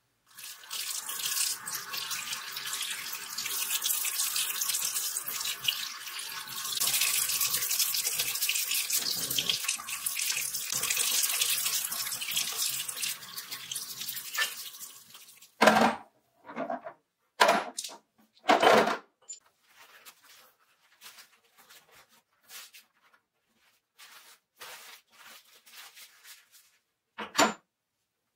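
Tap water running into a sink while a rusty hand-drill part is scrubbed under the stream with a toothbrush, for about fifteen seconds. Then the water stops, and a series of short knocks and rustles follows, with quiet gaps between them.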